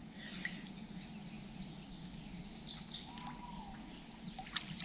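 Small birds chirping and trilling in the background, over a faint steady low hum.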